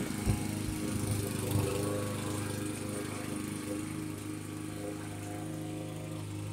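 Gasoline walk-behind lawn mower engine running steadily while mowing, with a single thump just after the start.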